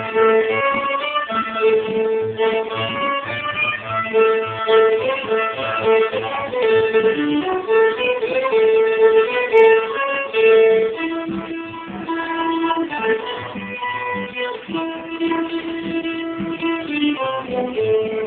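Fiddle and acoustic guitar playing a tune together, the fiddle carrying the melody in held, bowed notes over the guitar's accompaniment.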